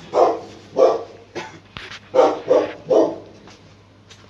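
Dog barking in short barks, with a quick run of three about two seconds in.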